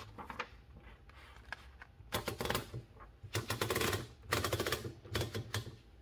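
Oliver No. 9 typewriter's mechanism clicking rapidly in four short rattling bursts, starting about two seconds in, as a sheet of paper is rolled into the platen.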